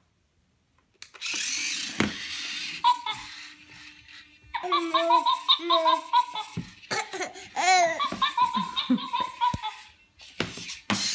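A toddler laughing and squealing in excitement, in runs of short pitched laughs that rise and fall, starting about halfway through after a few seconds of hissing noise.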